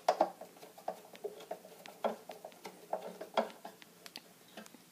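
Phillips screwdriver turning a small screw into a TV stand's metal bracket: a run of light, irregular metal clicks and scrapes, a little louder near the start, about two seconds in and about three and a half seconds in.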